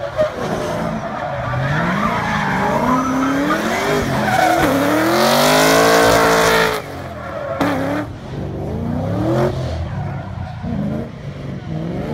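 A Nissan 350Z drift car's engine revving up and down over and over while its rear tyres spin and squeal sideways. Loudest a little past the middle, where the tyre screech is strongest, then it drops abruptly and the revs carry on rising and falling.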